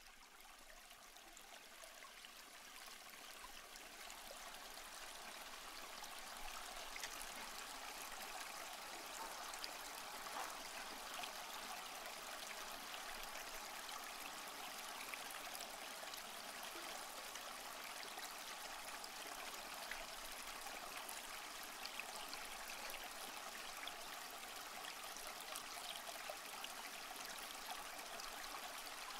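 Small garden-pond waterfall trickling and splashing steadily into the pond. It fades up over the first few seconds.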